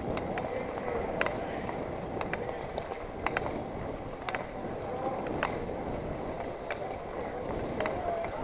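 Speed skate blades scraping on the ice, with a sharp click or scrape about once a second as the skaters stride, over a steady rushing noise of skating at speed.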